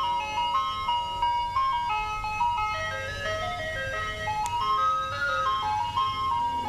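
Ice cream truck jingle: a simple chiming melody of clear, stepped notes over a low steady hum.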